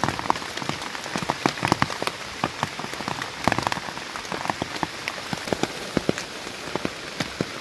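Steady rain, with many irregular sharp raindrop taps.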